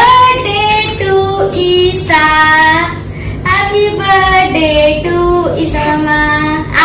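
A woman and a child singing a birthday song in front of the lit candle, loud and clear, the notes held and stepping up and down in pitch.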